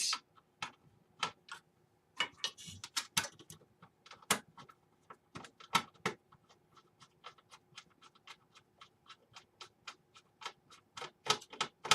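Screwdriver driving the screws that hold a mini-ITX motherboard into its case, heard as a run of small clicks. The clicks are irregular at first, then settle into a steady ticking of about two or three a second in the second half.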